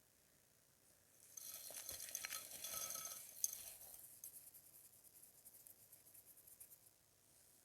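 Dry, dusty clay crumbling: a gritty crackle full of small clicks that starts about a second and a half in, peaks with one sharp snap around three and a half seconds, then thins out into faint fine crackles.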